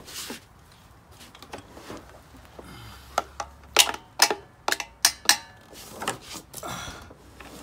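A string of sharp, irregular taps and clicks, loudest from about three seconds in: tapping on the carburetor of a Honda GCV190 engine to work the main jet loose, because it won't come all the way out.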